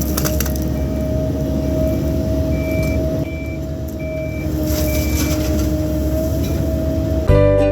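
Diesel heavy equipment running steadily with a held whine, while a backup alarm gives a series of short high beeps. Music cuts in near the end.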